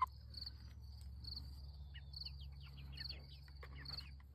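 A cricket chirping in an even rhythm, about two short chirps a second, with a few faint short cheeps from the young chickens in the coop.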